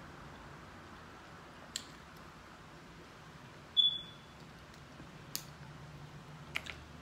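Mussel shells and foil handled by hand, giving a few faint scattered clicks. One short, high-pitched ping just before halfway is the loudest sound.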